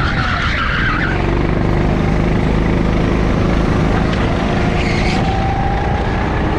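A go-kart engine running steadily at speed, heard from on board the kart, its pitch creeping up a little near the end. A brief high squeal sounds in the first second.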